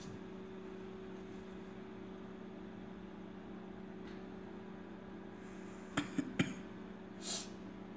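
Steady low electrical hum, with three quick clicks about six seconds in and a short soft whoosh about a second later.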